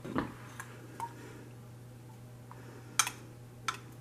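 A few light clicks and clinks of a metal utensil against glass measuring cups as thick melted candy wafers are poured and scraped, the loudest about three seconds in, over a faint steady hum.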